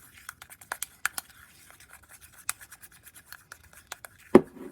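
A utensil scraping and clicking irregularly against a bowl as it stirs shaving cream and glue together, with one louder knock near the end.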